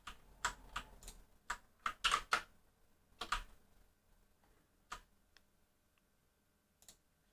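Typing on a computer keyboard: a quick run of key clicks over the first few seconds, then a few scattered single keystrokes.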